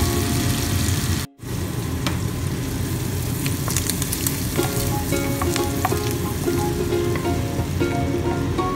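Shrimp sizzling in butter in a hot nonstick frying pan, with a wooden spoon stirring and scraping against the pan, over light background music. The sound cuts out for a moment about a second in, then the sizzling resumes.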